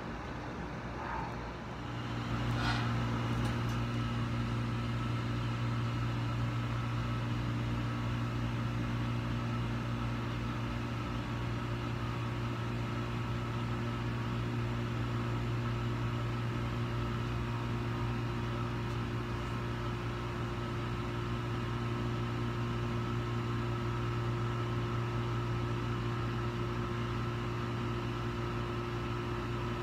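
A steady low mechanical hum, a motor running continuously with a few fixed tones in it; it gets louder about two seconds in, with a single short click just after.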